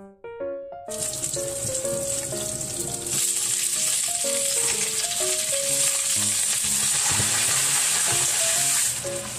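Clams and garlic frying in a hot wok, a steady sizzle that starts suddenly about a second in, grows louder around three seconds while they are stirred and tossed with a spatula, and eases off near the end. Light piano background music runs underneath.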